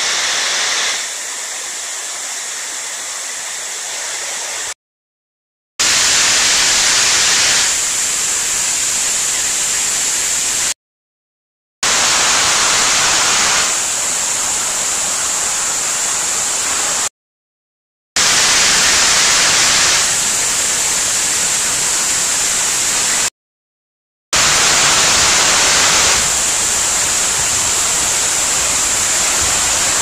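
Artificial curtain waterfall pouring from a concrete overhang into a shallow stone fountain pool: a steady, loud rush and splash of falling water. The sound comes in stretches of about five seconds, broken four times by about a second of complete silence.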